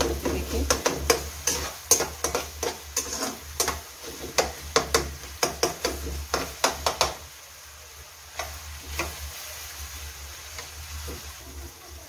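Slotted metal spatula scraping and tapping against a kadai while stirring chopped onions frying in oil, over a quiet sizzle; the stirring stops about seven seconds in, leaving the sizzle. The onions are being softened, not browned.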